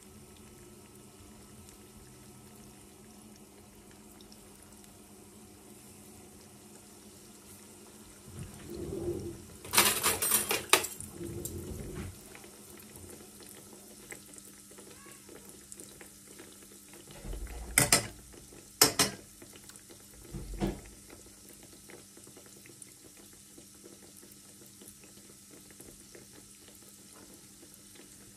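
Oil sizzling quietly in a frying pan around pieces of curd-cheese dough. A louder burst of sizzling and clatter comes about a third of the way in as more dough pieces go into the hot oil, and a few sharp clinks of metal forks against the pan follow a few seconds later.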